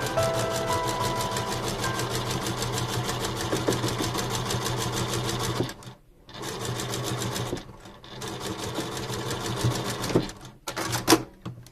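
Sewing machine stitching in fast, even runs, stopping briefly twice, with a sharp click near the end.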